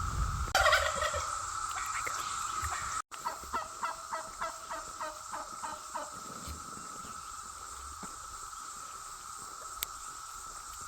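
Wild turkey calling: one loud call about half a second in, then a run of about ten notes, three a second, that fade out after about six seconds. A steady drone of cicadas runs underneath.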